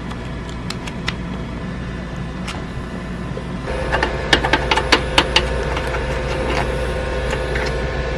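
Dual-extruder 3D printer starting a print: its fans and stepper motors run with a steady hum and scattered clicks. About a third of the way in the motor sound gets louder, with a run of sharp clicks.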